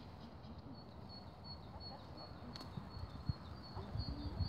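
Faint outdoor ambience: a low rumble of wind on the microphone, with a thin high chirp repeating steadily throughout.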